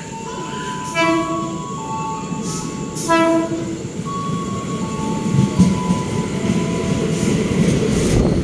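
KRL Commuter Line electric train sounding two short horn blasts about two seconds apart as it approaches, then pulling in alongside the platform with a rumble of wheels on rails that grows louder.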